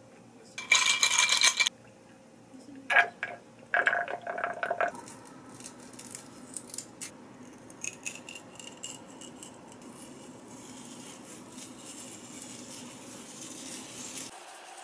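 A metal spoon and chopsticks clink and scrape against ceramic dishes, with a loud ringing clink about a second in and a few more around three to five seconds. After that come quieter crisp clicks and scraping as a spiral tornado-potato cutter is twisted into a raw potato.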